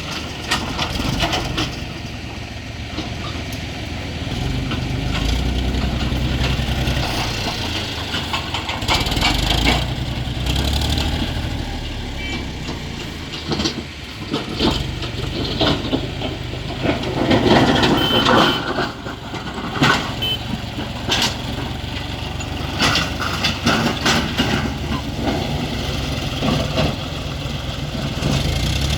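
John Deere tractor's diesel engine running steadily under work, with scattered knocks over it.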